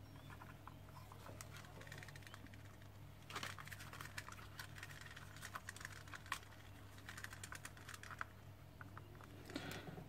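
Faint clicking and rustling as a seat belt retractor's plastic housing and webbing are handled, with a dense run of small clicks starting about three seconds in, over a low steady hum.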